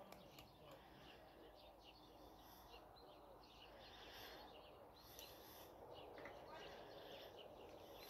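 Near silence outdoors with faint songbirds chirping and trilling in the background.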